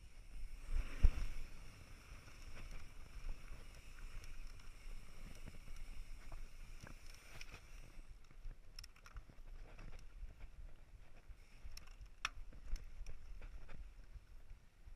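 Mountain bike ridden over a dirt trail: tyres rumbling with wind on the microphone, a heavy thump about a second in as the bike comes down off a wooden ramp, and scattered sharp clicks and rattles from the bike after that.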